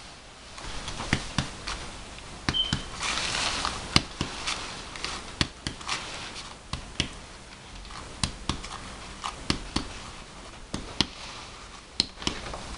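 Chest percussion on a bare back: a middle finger striking the other hand's finger laid flat on the skin, giving sharp taps, often in pairs, at one or two a second. The taps map the level of the diaphragm, where resonance gives way to dullness. A short breathy hiss sounds about three seconds in.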